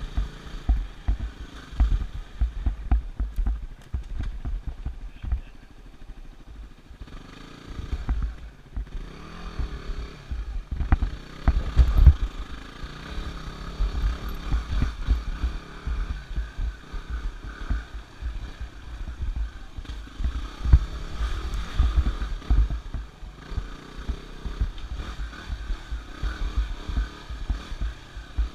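Yamaha WR250R's single-cylinder four-stroke engine running as the dirt bike is ridden along a forest trail. A heavy, uneven low rumble of thumps runs under it, loudest about twelve seconds in.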